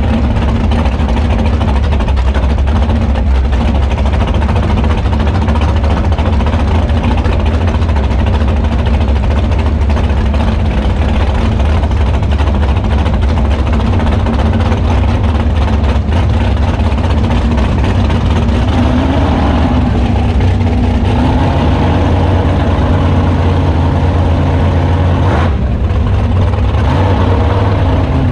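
Swamp buggy engine running at low speed, heard loud and close from on board, steady with a slight rise in pitch about two-thirds of the way through.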